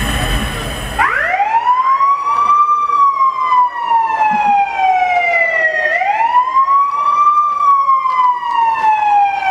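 Siren sound effect played over a loud sound system: two long wails, each rising quickly and then sliding slowly down, the second starting about six seconds in. It cuts in about a second in, after a dense burst of music.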